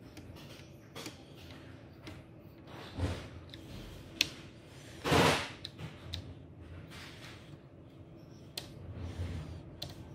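Scattered clicks and light knocks of handling, with one louder short noisy burst about five seconds in, over a steady low hum.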